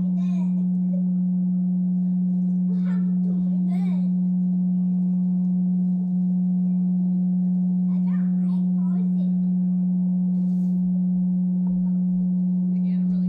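Vevor electric cream separator running, its motor spinning the centrifuge bowl with a loud, steady hum at one pitch.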